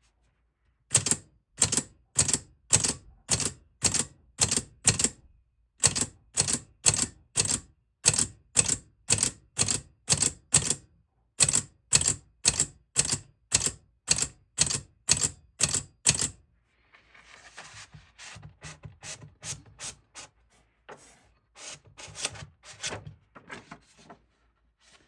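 Blickensderfer No. 5 type-wheel typewriter (1896/97) typing a test run across its characters: a steady string of sharp keystrokes, about two a second, with two short pauses. After about sixteen seconds the strikes give way to softer, irregular clicks.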